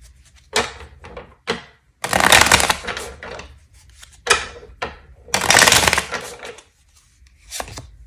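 A tarot deck being shuffled by hand: about six separate rustling bursts of sliding cards, the longest about two and five and a half seconds in.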